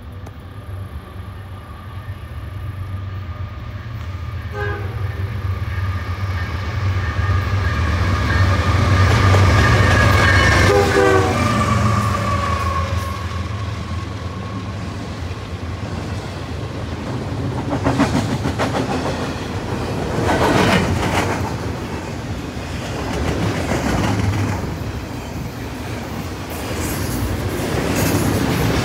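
CN diesel freight locomotives approaching and passing at speed, sounding the horn for several seconds, its pitch dropping as they go by over a rising engine rumble. Then double-stack intermodal container cars roll past with a steady clickety-clack and occasional sharp clanks from the wheels and couplers.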